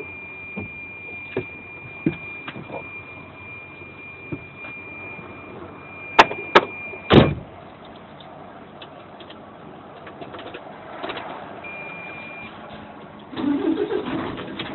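Steady hum inside a stationary vehicle's cab, with a thin high steady whine and a few sharp clicks about six to seven seconds in. Music starts near the end.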